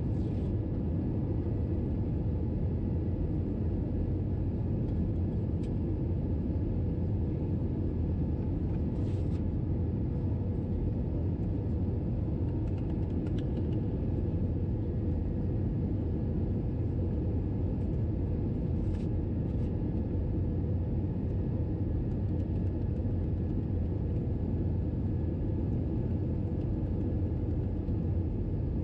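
Airbus A321-211 in cruise, heard from inside the cabin: a steady low rumble of engine and airflow noise, with a few faint clicks.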